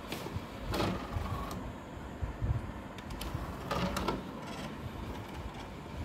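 Two brief rustling noises, about a second in and again about four seconds in, over a low rumbling background.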